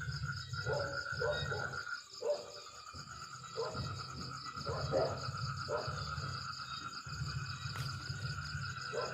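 Steady trilling insect chorus, with short low sounds recurring every half second to a second.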